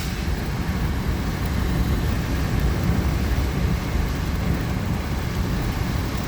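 Steady low rumbling noise of a moving vehicle, with no clear events.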